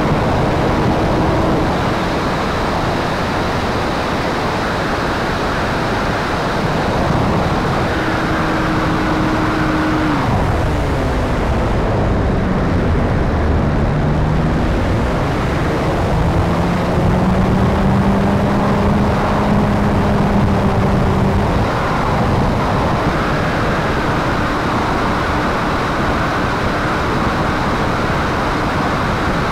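Radio-controlled P-51 Mustang model's motor and propeller running in flight, with wind rushing over the onboard camera. The pitch drops about ten seconds in as the throttle comes back in a dive, holds lower for a while, then climbs back near the end.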